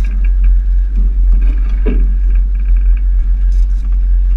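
Steady low rumble of a tour boat under way, with a brief faint voice about two seconds in.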